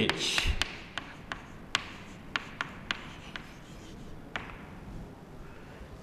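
Chalk writing on a chalkboard: sharp taps of the chalk against the board at uneven spacing, about ten over the first four seconds, with faint scratching between them.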